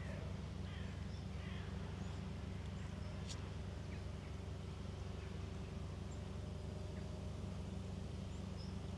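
Quiet riverside background: a steady low rumble with a couple of faint bird calls in the first two seconds and occasional faint chirps after.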